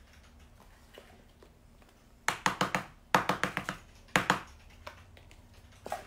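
Light, rapid tapping in three short bursts: a clear acrylic stamp block being dabbed onto an ink pad to ink the stamp, then pressed onto card.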